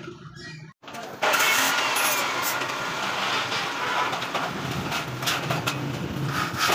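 Steel grill fabrication noise: a loud, crackling hiss with scattered clicks and metal knocks starts abruptly about a second in and carries on.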